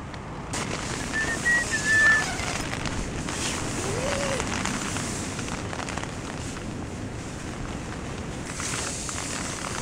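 Rain pattering on a nylon tent flysheet in gusty wind, heard from inside the tent as a steady crackly hiss. A brief high squeak a little over a second in.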